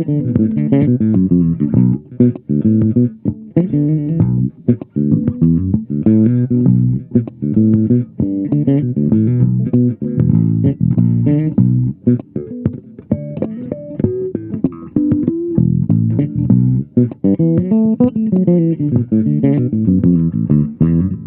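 Cunningham RLJ6 headless electric bass played fingerstyle: a busy groove of fast plucked notes. The pickups are in series, the mid-range boost is turned all the way up, and the mid-range frequency switch is in its up position.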